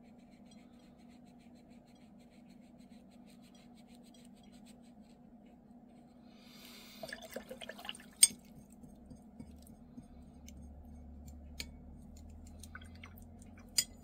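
A watercolour brush is swished briefly about seven seconds in, then gives one sharp clink against a glass water jar, over a steady low hum. A few light taps follow.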